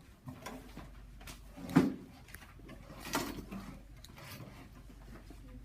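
Scattered knocks and bumps, the loudest a sharp thump nearly two seconds in.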